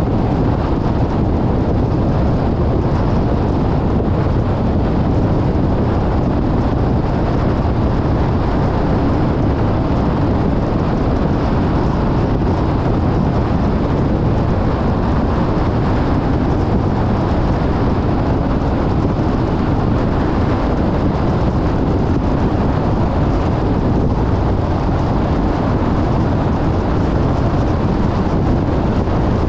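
Steady road noise of a car driving at speed: a low, even rush of tyres on pavement mixed with wind noise on the microphone.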